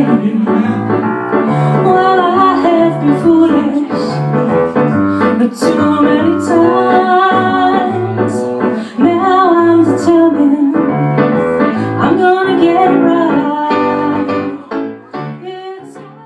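A woman singing live with piano accompaniment, a slow song. The music fades out near the end.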